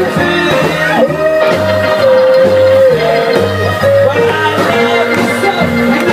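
Live band playing an instrumental passage in a rock-and-roll/R&B style: a pulsing bass pattern under a long, held lead melody line that slides between notes.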